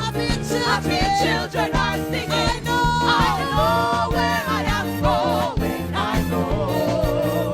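Upbeat gospel music: a singing voice wavering and sliding in pitch over a band with a steady beat.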